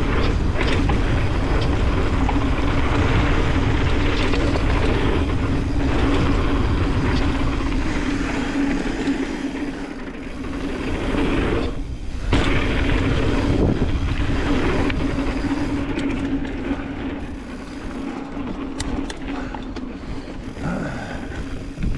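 Wind rushing over the camera microphone and mountain-bike tyres rumbling on a dirt trail during a fast downhill descent, with a steady hum underneath. The rush drops out briefly about twelve seconds in and eases off after about sixteen seconds.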